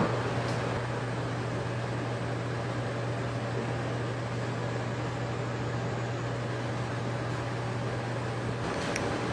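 Steady low hum with an even rush of air from the building's air-handling machinery, with a faint click near the end.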